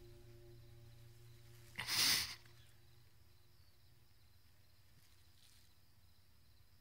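A man's sharp, noisy breath through the nose, stifled behind his hand, about two seconds in: a held-back sob. A fainter breath follows later, over faint low music tones that fade out.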